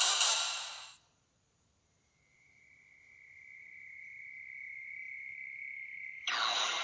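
Anime soundtrack: the last notes of the opening theme music fade out about a second in. After a brief silence, one steady high-pitched tone swells up slowly. Near the end a loud burst of rushing noise cuts in.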